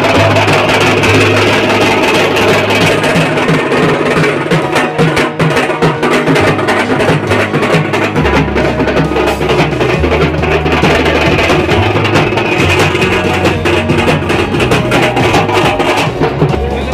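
Music with a fast, dense drum beat over a bass line that steps to a new note every couple of seconds, dropping away near the end.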